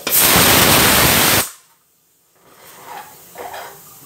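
A loud, even hiss lasting about a second and a half that cuts off abruptly, followed by a few faint clinks.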